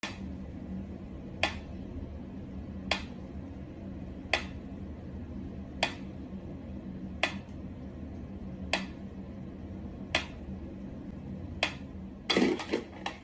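Mechanical pendulum metronome ticking slowly, one sharp click about every second and a half. Near the end a brief flurry of louder knocks and rattles as a cat paws at the metronome's swinging pendulum.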